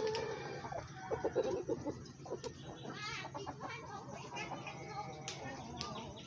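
Mixed flock of Brahma, Rhode Island Red and Black Australorp chickens clucking, with many short overlapping calls, loudest in the first second and a half.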